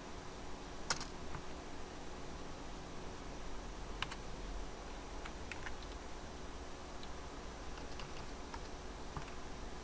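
Computer keyboard keys clicking now and then, about ten scattered keystrokes, over a faint steady hiss and low hum.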